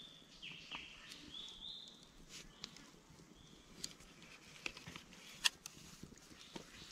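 Faint outdoor ambience: a few short high chirps in the first two seconds, then scattered sharp clicks and rustles, the loudest click about five and a half seconds in.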